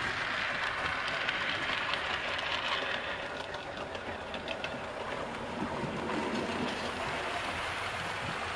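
Hornby 00 gauge model M7 tank engine running along the layout's track with its Bulleid coaches: a steady rolling whirr, with light clicks over the rail joints about halfway through.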